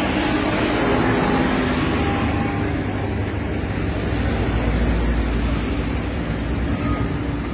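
Knife scraping scales off a Deccan mahseer on a wooden board, over a loud, steady low rumble like nearby traffic or machinery.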